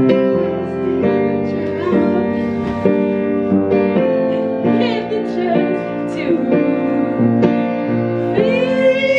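Upright piano played: a slow song with notes held and ringing over one another. Near the end a voice rises over the piano.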